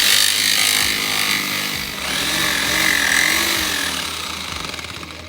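Power saw cutting into a wooden board, its motor pitch wavering up and down as it works through the wood; the sound eases off toward the end.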